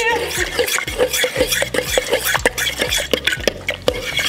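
Metal fork stirring a frothy yeast mixture in a stainless steel mixing bowl, scraping and clinking against the bowl in quick, irregular clicks.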